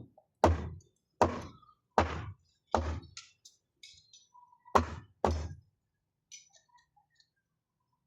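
Repeated heavy knocks: four evenly spaced thuds, a short pause with faint ticks, then two more close together.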